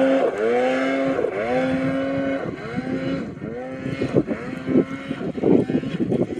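Snowmobile engine revving hard on a hill climb. Its pitch surges upward in a string of quick rises about once a second. In the last couple of seconds it grows fainter and turns choppy and uneven as the sled climbs away up the slope.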